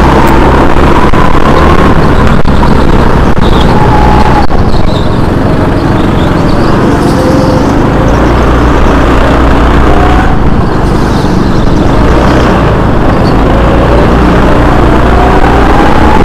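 Go-kart engine running hard, its pitch rising as it accelerates and dropping as it slows, several times over, with a steady low rumble underneath.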